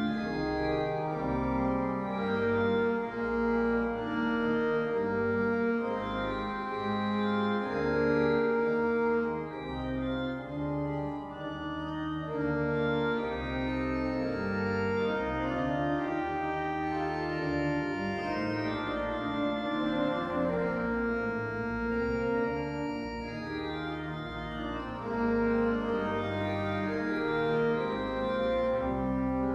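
Church pipe organ playing the closing postlude: full sustained chords over a moving bass, changing about every second, with no pause.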